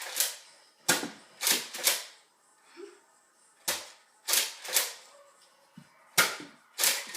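Nerf Elite Rampage pump-action blaster being worked: a series of about nine sharp plastic clacks and pops in irregular groups of two or three.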